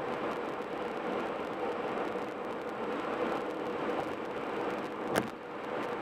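Steady tyre and road noise of a car cruising at highway speed, with a faint even drone under it. One sharp knock about five seconds in.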